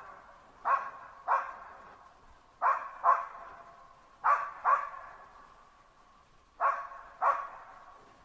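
Hunting laika dog barking in pairs of barks, a pair about every two seconds, eight barks in all, each followed by a short echo.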